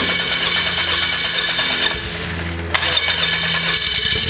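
Honda-based Viking aircraft engine running steadily on its first run. A loud hiss over the engine note cuts out about two seconds in and returns just under three seconds in.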